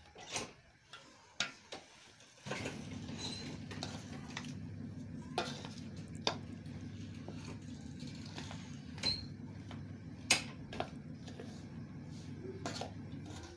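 Metal spoon scraping and clinking against a steel platter while stirring ground flaxseed mix, in a few separate knocks. A steady low hum starts about two and a half seconds in.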